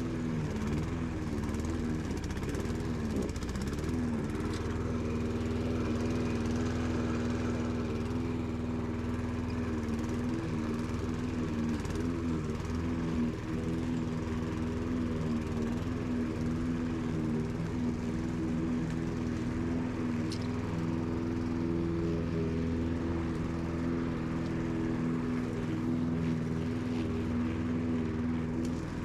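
Petrol walk-behind rotary lawn mower engine running steadily while it is pushed across the lawn cutting grass, its pitch wavering briefly a few seconds in.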